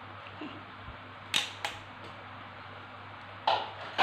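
Stainless steel potato ricer clacking as it is worked: four sharp metallic knocks in two pairs, over a faint steady low hum.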